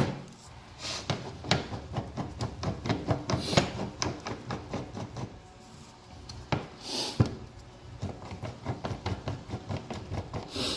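Small metal clicks, taps and rubbing as an oil filter cutting tool is adjusted by hand, its threaded screw backed off and the used oil filter set into its jaws on the bench. A few short sniffs come in between.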